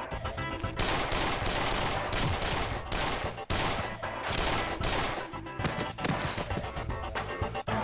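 Movie soundtrack gunfire: rapid, sustained bursts of shots for several seconds that thin out after about five seconds, over background score music.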